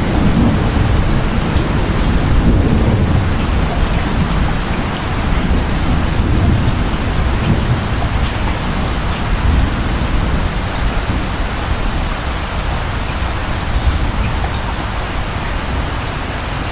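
Steady rain with a low rumble of distant thunder, heaviest in the first few seconds and then easing off.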